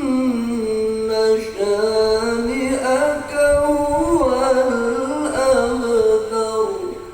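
Male qari reciting the Quran in a melodic chanted style, holding long ornamented notes that glide up and down in pitch. His voice trails off near the end for a breath.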